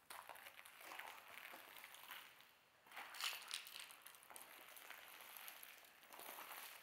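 Faint footsteps crunching over debris on a littered floor, an irregular crackling with a louder cluster about three seconds in.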